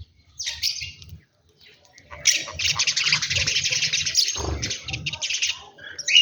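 Birds chirping in a dense, rapid chatter. A short burst comes about half a second in, then continuous chirping runs from about two seconds in until shortly before the end.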